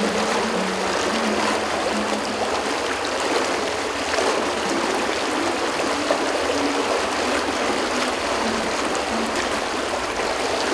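A brook running steadily: an even, continuous rush of flowing water.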